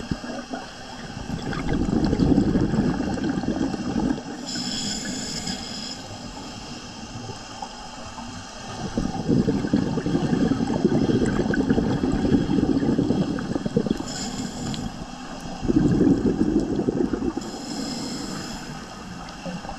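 Scuba diver breathing through a regulator underwater: long bubbly gurgles of exhaled air alternate with three short hissing inhales.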